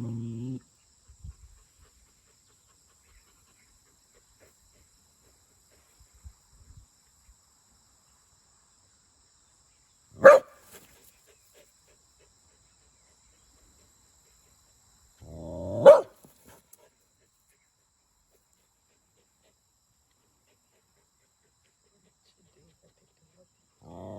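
Australian Shepherd growling and barking at a snake: a low growl that stops just after the start, one sharp bark about ten seconds in, and another some five seconds later that rises out of a short growl; long quiet gaps between.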